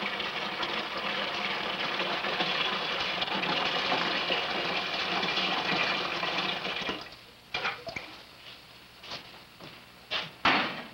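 Water running from a kitchen tap into a large metal pot, filling it, until about seven seconds in, when it stops. Then a few sharp clunks as the metal pot is handled, the loudest near the end.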